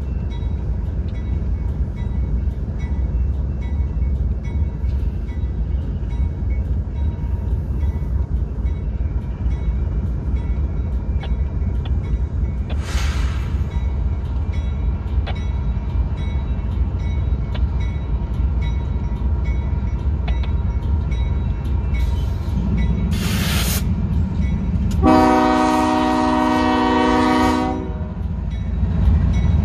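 Union Pacific freight train approaching slowly, its lead diesel locomotives (a GE ES44AC and an AC4400CW) making a steady low rumble. About 25 seconds in, the lead locomotive's air horn sounds one chord blast of about two and a half seconds, then starts again right at the end.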